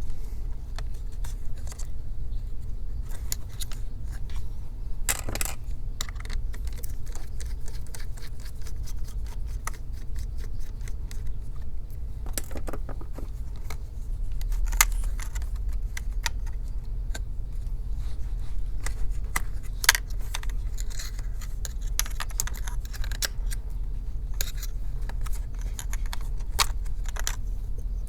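Irregular small plastic clicks, taps and scratches of hands and a tool working a DC power jack and its cable loose inside an open laptop, with a few sharper ticks, over a steady low hum.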